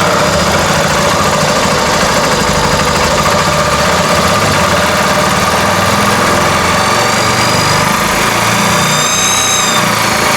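Honda Cargo 150's single-cylinder engine running steadily at idle just after starting. It carries the internal noise of something rotating scraping on the clutch side, which the mechanic is trying to locate.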